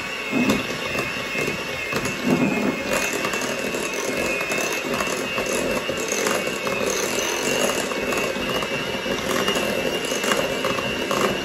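Electric hand mixer running with a steady whine, its beaters creaming softened cream cheese and butter in a glass bowl, with scattered light clicks of the beaters against the glass.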